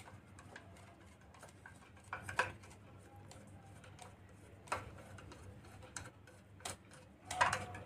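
Small scattered clicks and taps of screws, washers and a screwdriver as a ceiling fan blade is screwed onto its bracket by hand, with a few louder knocks spread through.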